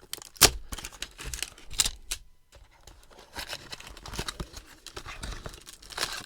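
Plastic wrap crinkling and tearing as it is pulled off a cardboard hanger box of trading cards, with irregular sharp crackles.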